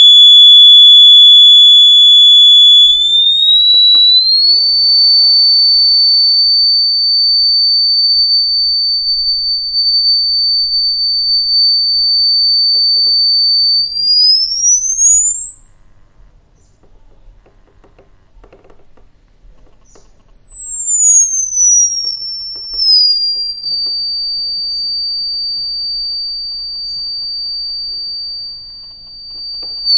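A loudspeaker driven by a homemade transistor audio power amplifier, playing a steady sine test tone of about 3.6 kHz that steps up to about 4.6 kHz a few seconds in. Midway the tone glides up until it rises out of hearing, then glides back down and settles near 4.6 kHz, with a few faint knocks underneath.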